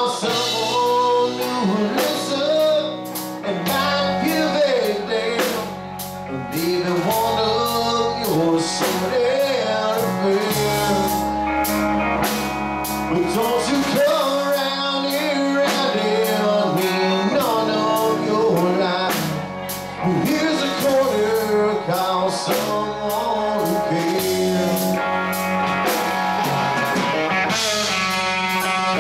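Live bar band playing an instrumental break: electric guitar lead with bent, wavering notes over bass guitar and drum kit.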